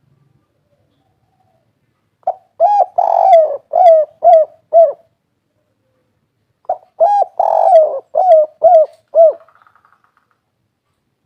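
Spotted dove (derkuku/tekukur) cooing two phrases about two seconds apart. Each phrase is a short note, a longer coo, then several quick coos that fall in pitch: the three-ending 'kuk 3' song type.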